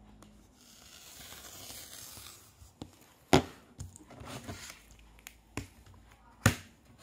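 A rotary cutter rolling through a flat rubber band sheet along a cutting ruler, a scraping hiss of about two seconds. Then sharp knocks of the plastic ruler being flipped and set down on the cutting mat, the loudest about three seconds in and near the end.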